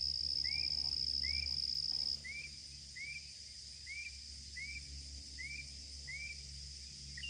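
Steady high-pitched insect trill, loud at first and then dropping sharply in level about two seconds in but carrying on faintly. Over it, a short rising-and-falling chirp repeats about once every second.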